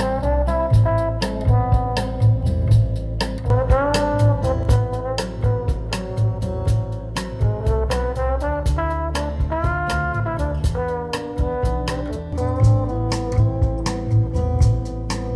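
Recorded music played back through home hi-fi loudspeakers for a listening comparison: a gliding melody line over a steady drum beat with a strong bass.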